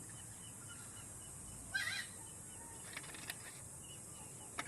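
A chicken gives one short squawking call about two seconds in, over a steady high-pitched hiss.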